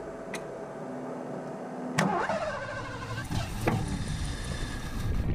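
1984 Ford LTD Crown Victoria's central-fuel-injected V8 being started: a sharp click about two seconds in, then the engine cranks and fires, running roughly for about a second. The owner puts the poor running down to the throttle-body injectors not injecting fuel.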